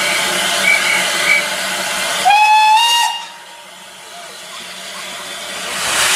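Full-size steam locomotive hissing steam, with one short whistle blast about two seconds in that rises slightly in pitch. The hiss then dies down, and near the end a loud rush of escaping steam starts up.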